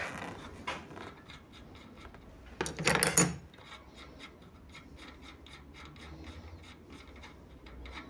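Locknut being spun off the threaded axle of a cup-and-cone rear bicycle hub by hand: faint rubbing and light clicks of metal threads turning. A louder scraping rub comes about three seconds in.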